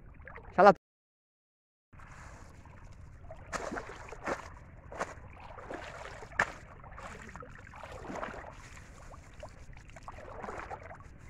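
Shallow water sloshing and splashing, with several sharp knocks and rattles, as a woven bamboo shrimp trap is handled and lifted out of the water. It opens with a brief loud pitched sound, followed by about a second of dead silence.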